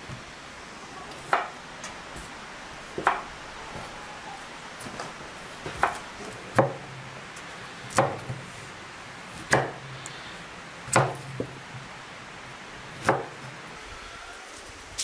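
Kitchen knife chopping broccoli on a wooden cutting board: about eight separate sharp knocks of the blade striking the board, spaced a second or two apart.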